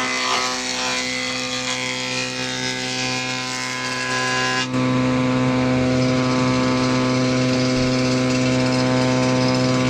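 Electric woodworking machine motor running steadily with a constant hum, changing abruptly about halfway through to a slightly louder, steadier drone.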